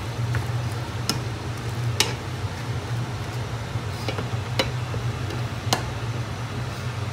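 Prawns simmering and sizzling in liquid in a stainless steel pan while a spatula stirs them, with a few sharp taps of the spatula against the pan, over a steady low hum.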